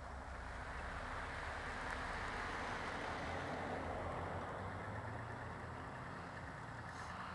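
Peterbilt truck driving, a low engine drone under steady road and wind noise that swells in the middle.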